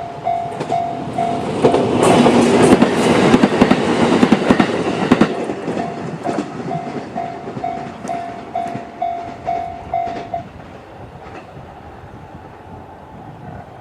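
Japanese level-crossing electronic warning bell (the JR standard tone) dinging about twice a second while a JR E131-series electric train passes, its wheels clicking over the rail joints. The train passes loudest about two to five seconds in and fades, and the bell stops about ten seconds in, leaving a low hum.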